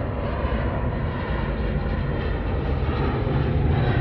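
Boeing 787-9 Dreamliner's jet engines on the climb-out after take-off: a steady deep rumble that grows gradually louder.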